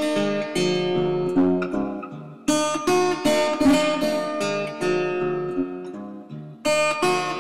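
Acoustic guitar strumming chords that ring out. The sound dies down about two seconds in and again near the end, and fresh strums come in each time.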